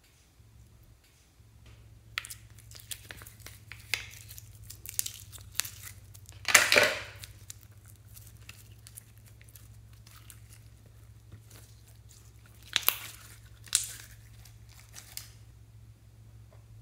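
Red and blue slime being stretched, folded and squeezed by hand, giving sticky clicks and pops. The loudest of these is a drawn-out tearing crackle about six and a half seconds in, with two shorter ones about thirteen and fourteen seconds in.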